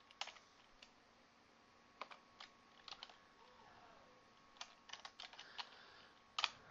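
Faint computer keyboard typing: scattered keystrokes in small irregular clusters, with one louder keystroke near the end.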